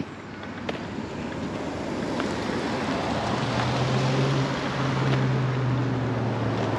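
A small SUV driving past at low speed on a paved road: tyre noise and a low engine hum swell as it comes alongside, about three or four seconds in.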